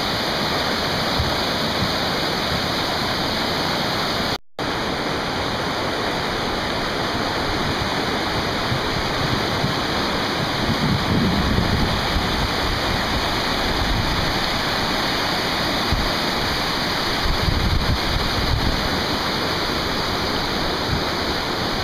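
River rapids rushing, a loud, steady roar of whitewater, with a few low rumbles in the middle and near the end. The sound drops out for a moment about four seconds in.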